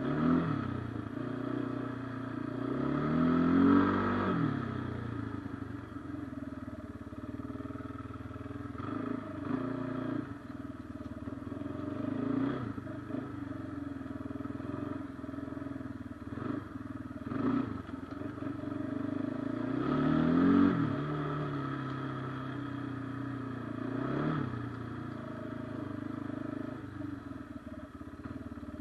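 Kawasaki Brute Force 300 ATV's single-cylinder four-stroke engine under way, its revs rising and falling repeatedly with the throttle. The biggest pulls come about three seconds in and again about twenty seconds in.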